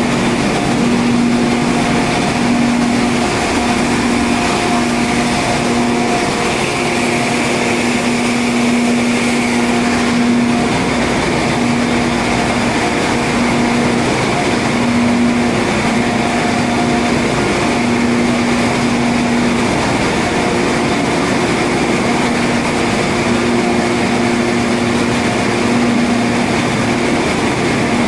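Loud, steady machinery noise of an LNG carrier's diesel-electric engine room: a continuous drone with a low humming tone that fades in and out every second or two.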